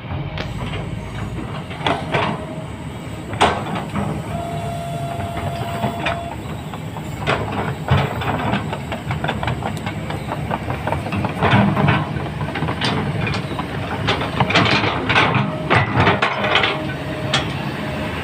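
Heavy diesel machinery running, with repeated metal clanks and knocks, the louder ones clustering toward the second half.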